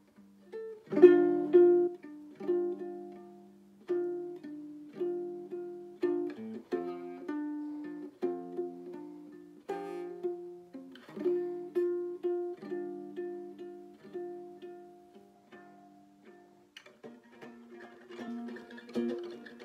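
Solo nylon-string instrument fingerpicked, a slow melody over sustained chord notes, with a loud struck chord about a second in and busier, denser picking near the end.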